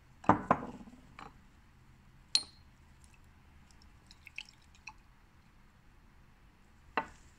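Glass test tube being handled in a metal test-tube rack: a few sharp clinks and knocks, two loud ones in the first second and one with a brief glassy ring about two seconds in, then light ticks and a last knock near the end as the tube is set back in the rack.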